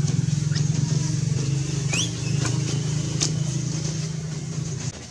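An engine running steadily with a low pulsing hum, cutting off abruptly near the end. A few short high chirps sound over it.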